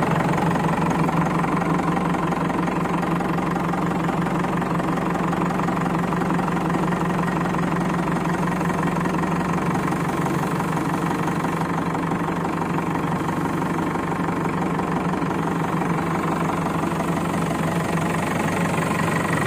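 Diesel engine of a Manitou TLB 740S backhoe loader idling steadily at about 600 rpm while the front loader arm is raised on the hydraulics at idle, with no throttle applied.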